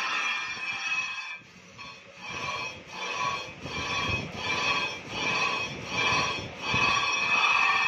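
Metal screeching as a crankshaft is machined on a lathe, the tool cutting into the spinning journal and throwing sparks. The screech swells and fades a little more than once a second.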